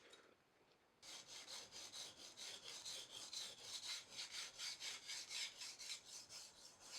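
A knife blade stroked back and forth on a wet whetstone, a faint rhythmic rasping of about three strokes a second that starts about a second in.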